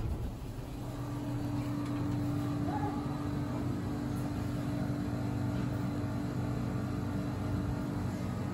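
Steady low machine hum with one constant tone, growing slightly louder in the first second or two and then holding even.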